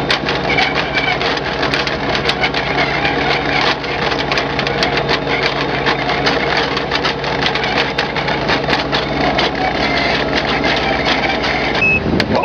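A heavy engine running steadily with a low hum and a dense, rapid clatter of clicks. Near the end the sound changes and a high reversing beep starts.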